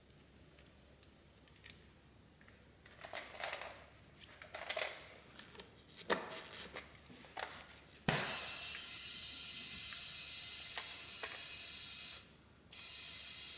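A few handling clicks and rustles, then about eight seconds in a steady, loud hiss of rushing air starts suddenly. It cuts out for half a second near the end and resumes, as when air is fed into a repaired scooter tyre.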